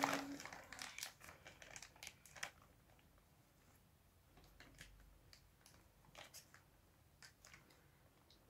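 Plastic mailer bag crinkling and rustling as small hands pull and pick at it, busiest in the first second or so, then a few faint scattered crackles.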